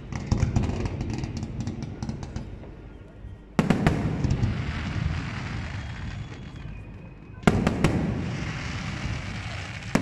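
Fireworks display: rapid crackling for the first couple of seconds, then two sharp bangs of bursting shells, one about three and a half seconds in and one near eight seconds, each followed by a few seconds of crackle and rumble that slowly fades.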